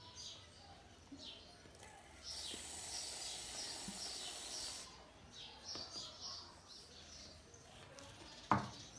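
Aerosol can of shaving foam hissing for about two and a half seconds as foam is sprayed out, starting a couple of seconds in. Birds chirp throughout.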